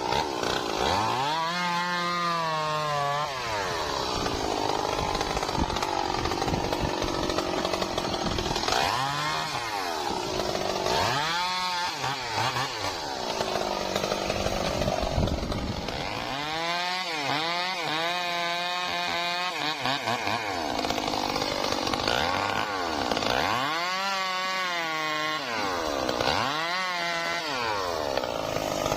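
Stihl MS 382 two-stroke chainsaw cutting trembesi (rain tree) wood: the engine pitch climbs and drops back about six times, with stretches of steady, rougher running in the cut between.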